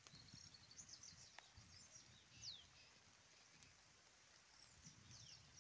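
Near silence with faint bird chirps and short whistles, one of them a clear falling whistle about two and a half seconds in.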